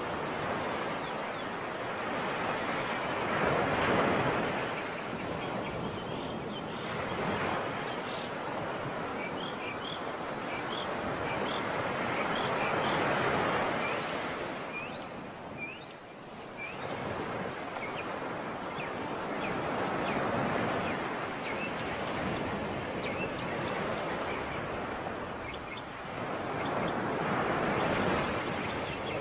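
Sea surf: waves breaking and washing ashore in slow surges that swell and fade every several seconds. Faint, short, high chirps sound over the surf through the middle.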